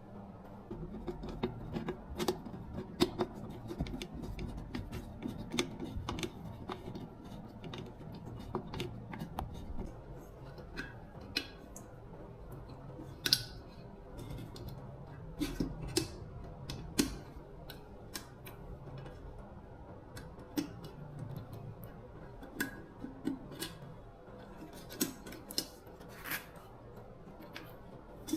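Irregular light clicks and taps of hand tools and small metal parts being handled at a workbench, with a few sharper knocks scattered through, over a low steady background hum.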